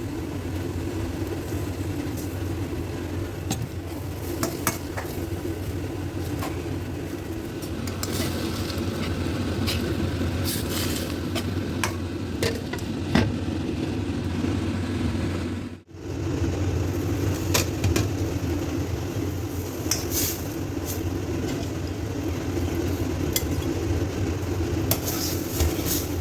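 A stir-fry of amaranth greens sizzling in a wok, with a spatula scraping and clinking against the pan now and then over a steady low hum. There is a brief break about sixteen seconds in.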